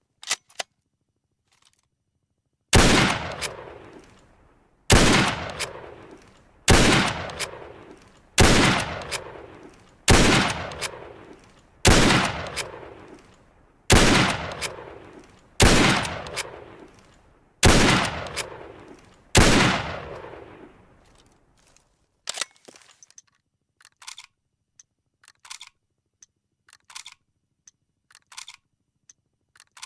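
Lee-Enfield bolt-action rifle firing about ten shots in steady succession, roughly one every two seconds, each shot with a long echoing tail. This is followed by a run of short, faint mechanical clicks.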